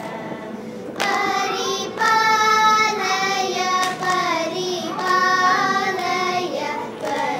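A group of children singing a Carnatic song in unison, coming in about a second in with long held and sliding notes and short breaks between phrases, over a steady electronic tanpura drone.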